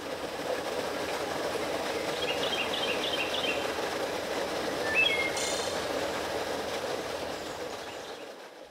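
A railway train rolling past with a steady clatter that fades in and fades out near the end. A few short high chirps come a couple of seconds in, and a brief high squeak with a sharp click about five seconds in is the loudest moment.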